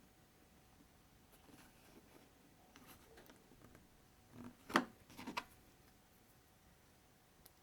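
Small plastic building bricks being handled: faint rustling, then three or four sharp clicks about four and a half to five and a half seconds in, the loudest near the middle of the cluster.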